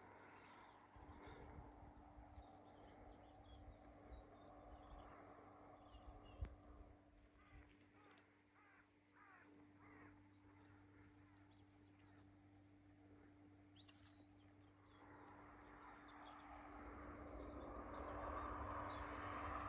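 Quiet countryside ambience: faint, scattered birds chirping, with a steady low hum underneath and a rushing noise, like wind on the microphone, building over the last few seconds.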